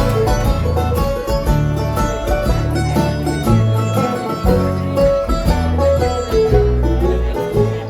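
Bluegrass band playing an instrumental passage, with banjo and guitar picking over steady low bass notes.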